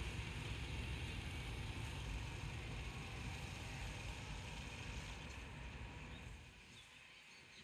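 Diesel engine of a chair coach bus running with a low rumble, which fades away about six seconds in.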